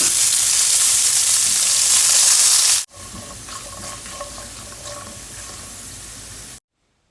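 Food frying in hot oil, a loud sizzle that cuts off abruptly about three seconds in, followed by a quieter sizzle that stops suddenly shortly before the end.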